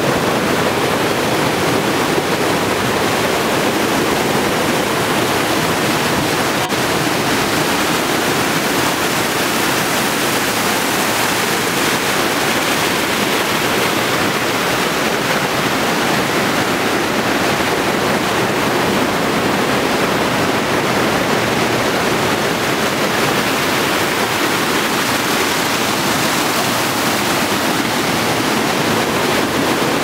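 A fast river running over rapids: a loud, steady rush of white water with no let-up.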